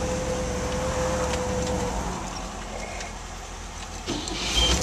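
Cabin sound of a 1956 Cadillac Eldorado: a steady low rumble with a steady hum that drops away about two seconds in. Near the end, as the ignition key is turned, there is a sudden loud burst of engine noise as its V8 starts.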